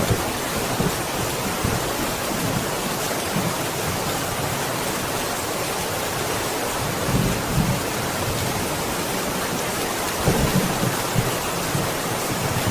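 Steady heavy rain in a thunderstorm, with low rolls of thunder swelling up about halfway through and again near the end.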